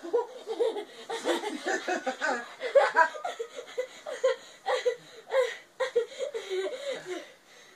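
A boy laughing in quick, repeated bursts of high-pitched giggles.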